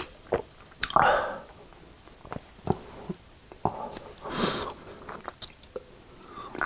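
Close-up mouth sounds of someone drinking cola from a can: gulps and swallowing clicks, with two longer, louder breathy sounds, about a second in and again just past the middle.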